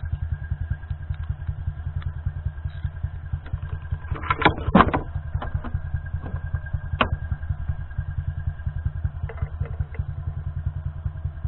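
Small engine idling with a fast, even beat, with a couple of brief clatters about four and a half seconds in.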